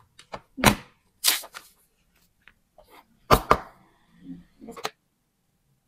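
Banana being peeled by hand: several short, sharp tearing sounds as the peel is pulled down in strips, the loudest about two-thirds of a second in and again around three and a half seconds in.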